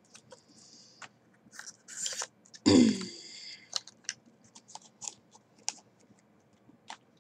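Small clicks, taps and rustles of makeup packaging being handled, with one short, loud sound about three seconds in.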